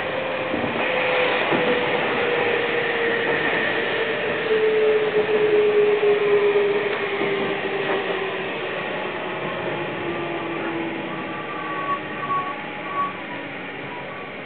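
Electric commuter train heard from inside the car: running noise over the rails with a motor whine that falls steadily in pitch as the train slows alongside a station platform, and a few short high-pitched tones near the end.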